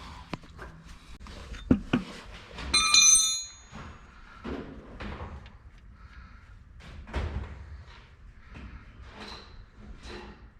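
Metal hand tools knocking and clanking while the truck's oil is being changed, with one loud metallic clang about three seconds in that rings briefly before dying away, and scattered lighter knocks after it.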